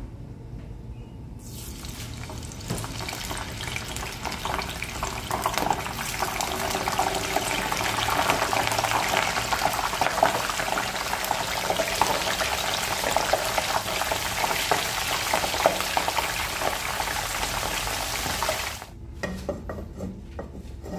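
Shredded potato and sweet potato deep-frying in a pan of hot oil: a dense, crackling sizzle that starts about a second and a half in, swells, and cuts off suddenly near the end, followed by a few light clicks.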